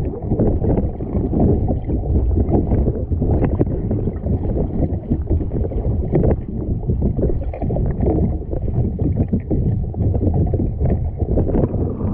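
Wind buffeting the microphone in uneven gusts, with sea water sloshing and splashing against a sea kayak.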